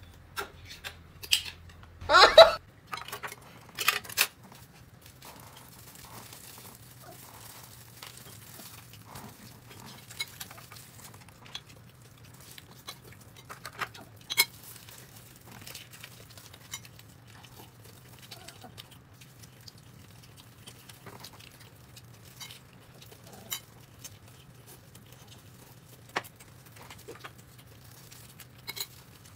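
Eating at a table: scattered small clicks and knocks of dishes and utensils, with crinkling and tearing of food or packaging. A louder cluster of sounds comes about two seconds in.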